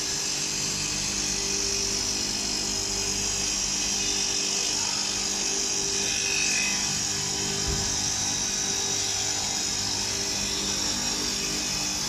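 Horizontal glass beveling machine running steadily, its row of grinding-wheel motors giving a steady hum under a high hiss while a glass sheet is fed through.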